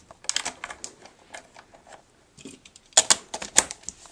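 Irregular plastic clicks and knocks from handling a JG P90 airsoft gun's body and buttstock while the battery is being taken out, with a quick run of clicks about a third of a second in and a louder cluster about three seconds in.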